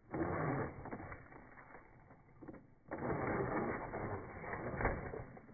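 A toy RC rock crawler driving in two bursts, its small electric motor and gearbox grinding as the tyres scrabble over dirt and rock. The first burst is short, near the start; the second, longer one starts about three seconds in.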